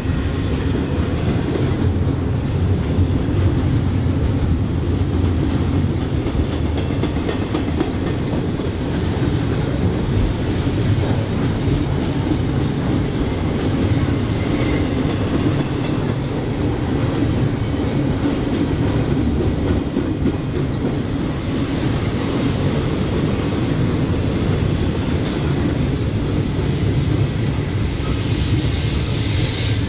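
Freight train cars rolling past at speed, a steady, unbroken noise of steel wheels running on rail. Faint high wheel squeal creeps in near the end.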